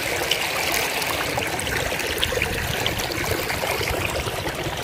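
Muddy rainwater runoff rushing and churning over rocks in an earth channel, a steady rush with many small splashes.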